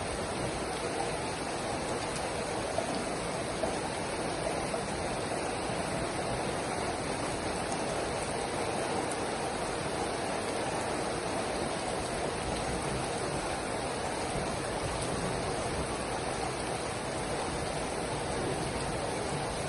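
Steady rain falling, an even hiss with no let-up, with a couple of light taps a few seconds in.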